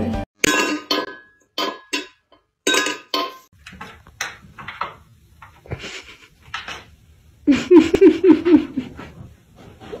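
Knocks and clatter from a cat moving about inside a plush llama-shaped cat house, strongest in the first few seconds. About seven and a half seconds in there is a quick string of short pitched sounds, each rising and falling.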